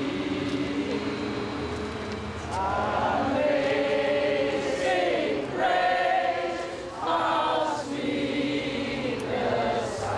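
Several voices singing together in long held notes, some sliding in pitch, like a choir.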